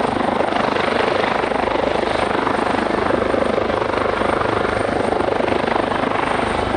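Search-and-rescue helicopter hovering for a hoist rescue, its rotor giving a loud, steady, rapid chop.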